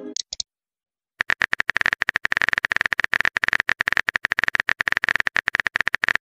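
Texting-app keyboard typing sound effect: a fast, even run of small clicks that starts about a second in and goes on without a break, as the next chat message is typed out.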